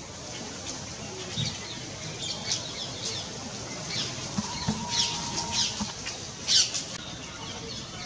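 Rufous treepie calling to attract a mate: a string of short, sharp high notes, the loudest about six and a half seconds in, with a brief held whistle-like tone around five seconds.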